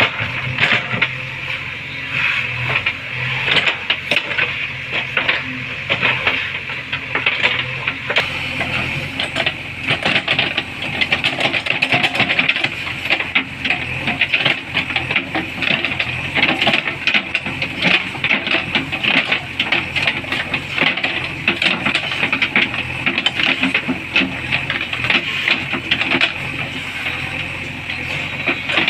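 JCB backhoe loader's diesel engine running steadily under a dense, clattering hiss of mechanical noise with many sharp clicks.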